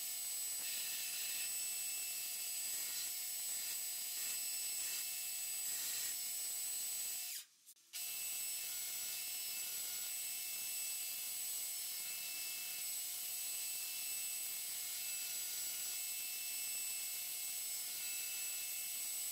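Belt grinder running with a 52100 carbon steel chef knife blade pressed against the abrasive belt: a steady grinding hiss over a constant motor and belt whine. The sound cuts out for a moment about seven seconds in.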